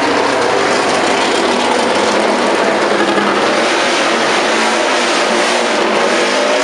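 2012 1000cc MotoGP racing motorcycle engines running at high revs, loud and continuous, with a rising engine note near the end.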